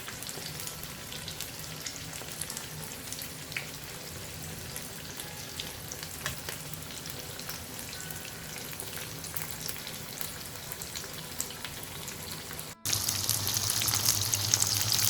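Threaded chicken pakoras frying in hot oil in a pan: a steady sizzle dotted with small pops and crackles. Near the end it cuts abruptly to a louder, brighter sizzle.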